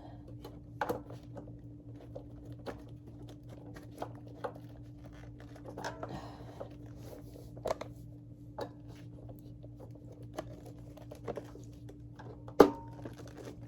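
Scattered light clicks and taps of hands handling a vintage Hoover Convertible vacuum's bag and bag flange as it is seated, with one sharp, louder click near the end. A steady low hum runs underneath.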